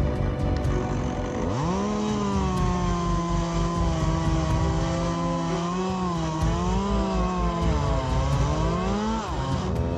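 Chainsaw revving up about a second and a half in and running at high speed, its pitch sagging and recovering as it cuts, then dropping off briefly and revving again near the end.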